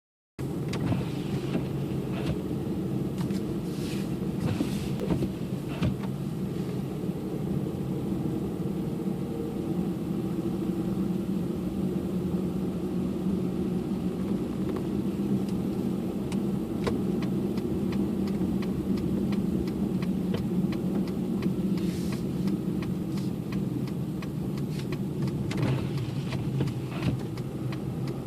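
Car being driven through snow: a steady engine and road hum, with many small clicks and ticks throughout and a few brief hissing sweeps.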